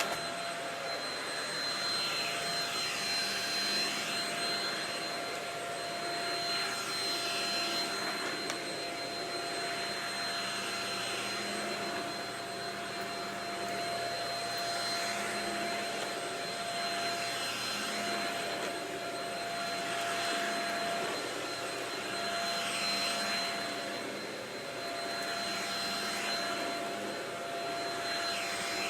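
Shark Rocket stick vacuum running steadily, a high motor whine over a rushing hiss that swells and eases every few seconds.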